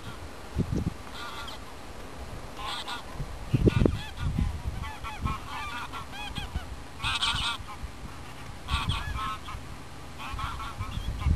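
A flock of geese honking, many overlapping calls, densest about seven seconds in, with low thuds and rumbles mixed in.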